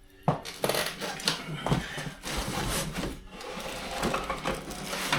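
Handling noise as a boxed e-bike is lifted out of its shipping box: rustling and scraping of the packing with knocks and rattles, a sharp knock just after the start.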